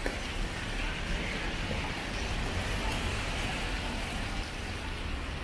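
Rainy city street ambience: a steady hiss of rain and tyres on wet road over a low traffic rumble, a little louder in the middle.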